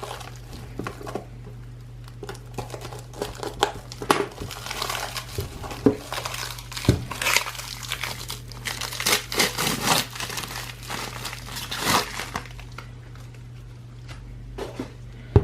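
Plastic packaging crinkling and rustling in irregular bursts as a coiled Ethernet cable is handled and unwrapped. The rustling is busiest in the middle and thins out near the end.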